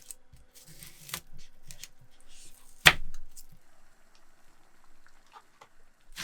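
Light rustling and small clicks of vegetables being handled on a kitchen counter, with one sharp knock about three seconds in.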